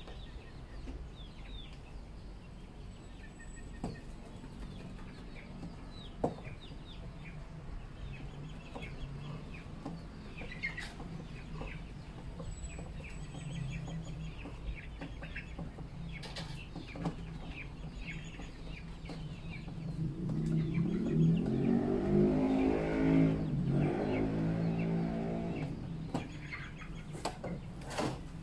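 Chickens clucking and small birds chirping in the background, with a few light clicks from hand work on the plastic drum. About twenty seconds in, a deeper humming sound swells for several seconds and then fades.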